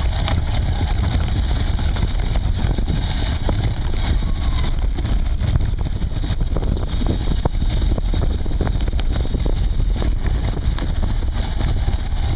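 Mountain bike riding fast over a bumpy dirt trail, heard through a seatpost-mounted action camera: a steady low rumble of tyres and frame vibration with frequent knocks and rattles as the bike hits bumps.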